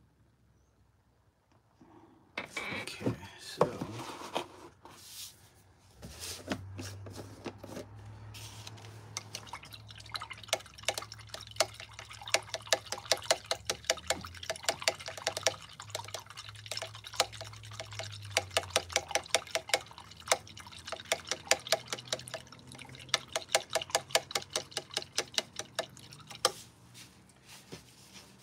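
A paintbrush swished and tapped in a small jar of liquid, a rapid run of light ticks against the jar with some sloshing, typical of rinsing the brush or stirring paint. A few knocks and scrapes come before it, about two to five seconds in.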